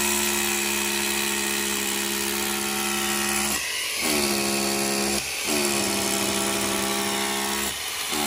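Hammer drill boring holes into a concrete-block wall for rebar dowels, its motor running at a steady high whine. It eases off and spins back up about three times.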